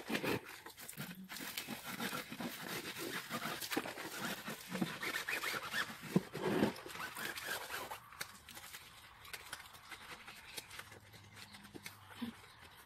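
Wet car tyre being scrubbed with a scrub mitt or brush: rapid rough scrubbing strokes on the rubber sidewall, easing off to fainter rubbing about eight seconds in.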